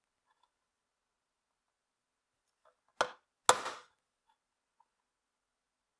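Two light, sharp taps about half a second apart: a pair of diagonal cutters used as a small hammer striking a sharpened-nail center punch on a powder-coated steel chassis top, dimpling it to guide a drill bit.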